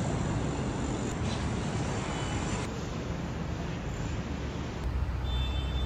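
City street noise: a steady rush and hum of traffic, with a brief high tone about five seconds in.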